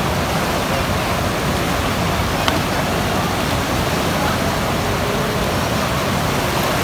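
Swat River rapids rushing over rocks: a steady, loud, unbroken wash of white water.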